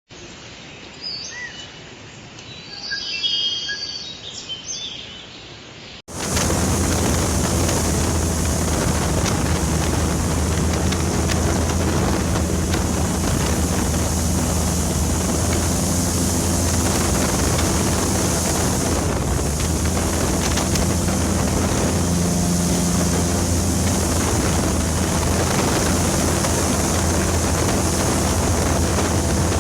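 Jet boat engine running steadily at cruising speed, a constant low drone with a hiss of water and wind over it, starting abruptly about six seconds in after a quieter stretch.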